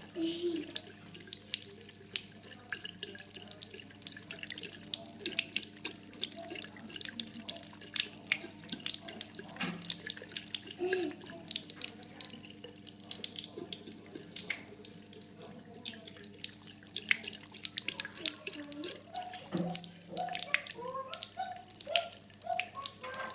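Thin stream of tap water running into a ceramic bathroom sink, spattering irregularly as a cat laps at it with its tongue. A steady low hum sits underneath.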